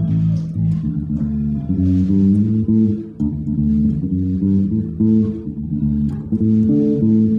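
Electric bass guitar playing a Ghanaian praise bass line in the key of D, a continuous run of plucked notes that change every fraction of a second.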